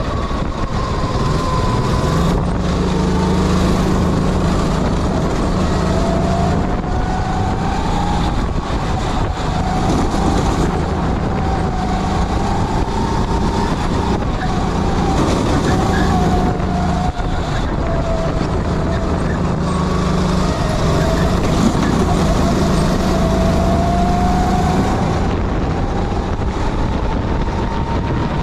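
Sodikart kart engine running at speed, its pitch rising and falling again and again as the revs climb on the straights and drop into the corners.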